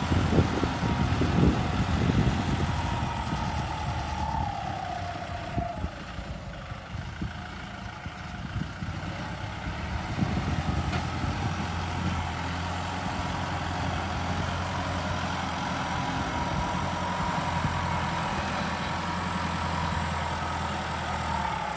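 Kubota L50 turbo-diesel tractor engine running under load while pushing and levelling sand with a front blade. It is loudest with some clatter at first, dips as the tractor moves off, then runs steadily as it works back. A higher whine drops in pitch twice.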